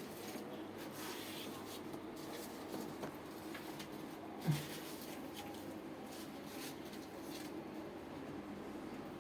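Faint scraping and handling noises from hands-on work, with scattered light clicks and one short dull thump about four and a half seconds in.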